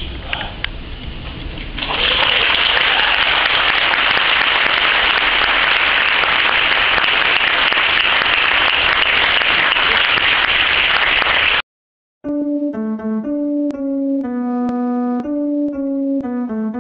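Congregation applauding, a loud steady clatter of many hands that begins about two seconds in and is cut off abruptly partway through. After a split second of silence, piano music starts, playing single notes and chords.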